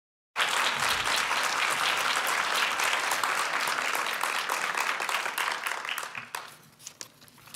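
Audience applauding. It starts suddenly about half a second in, stays steady, then dies away about six seconds in.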